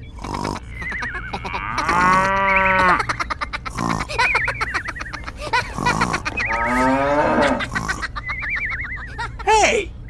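Cartoon sound effects: a cow mooing twice, with warbling high whistles and fast clicking between the moos, and a short squeak near the end.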